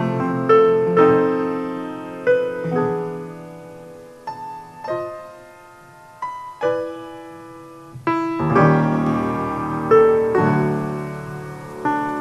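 Piano playing alone: chords struck about once a second and left to ring and fade. It grows quieter toward the middle and turns fuller again about eight seconds in.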